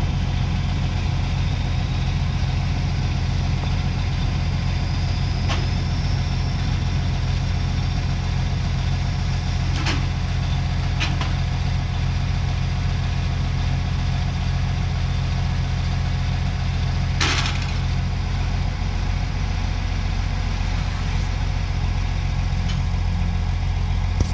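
Big New Holland TJ375 tractor's diesel engine running steadily at a low, even note. A few short sharp knocks or cracks break over it, at about five seconds, twice around ten to eleven seconds, and most strongly at about seventeen seconds.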